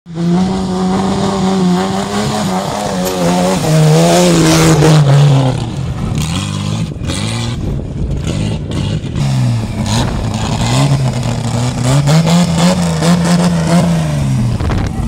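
Off-road rally buggy's engine revving hard, its pitch wavering and then swelling up and down several times as the stuck buggy tries to drive free.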